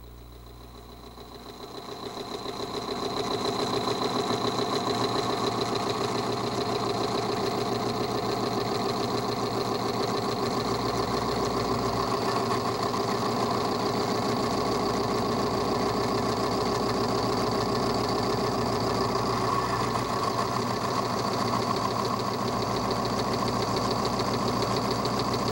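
Timken extreme-pressure test machine running: its electric motor spins a steel test bearing against its race in an oil bath treated with Petron Plus while pressure is applied through the lever arm. The sound is a fast, even mechanical rattle with a thin high whine. It grows louder over the first three seconds, then holds steady.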